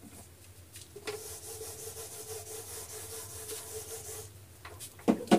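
Yellow duster wiping a whiteboard: a steady scrubbing hiss that starts about a second in and stops after about three seconds. A brief louder sound follows near the end.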